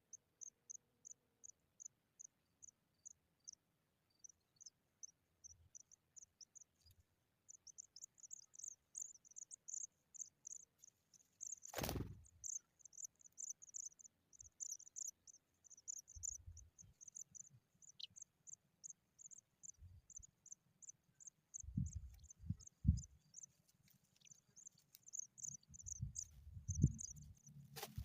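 Pipit nestlings giving thin, high-pitched begging chirps, a few a second, at first evenly spaced and then coming in denser, uneven runs. A sharp click about halfway through and another at the end, with a few low thumps near the end.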